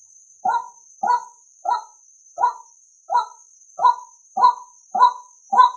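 Male white-breasted waterhen calling: a short harsh call repeated about every two-thirds of a second, nine times, growing a little louder toward the end. It is a trapper's lure recording for drawing in wary males.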